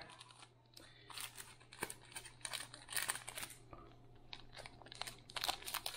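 Crinkling and rustling of plastic sachets and paper packets being handled and pulled out of a cardboard box, in short irregular rustles and clicks.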